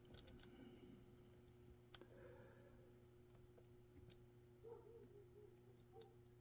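Faint, scattered clicks of a lock pick and tension wrench working the pins inside a Mul-T-Lock Jr pin-in-pin mortise cylinder, about five sharp ticks spread over a few seconds.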